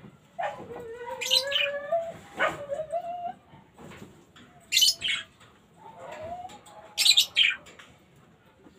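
African lovebirds giving sharp, high-pitched shrieking chirps in three loud bursts, over a lower, sliding whine.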